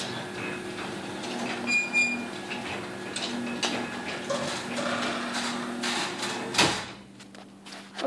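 Chamberlain Whisper Drive belt-drive garage door opener lowering a sectional garage door: a steady motor hum with light rattling, then a loud thump about six and a half seconds in as the door closes, after which it goes quieter. It makes a bit of noise when it's closing, but not much.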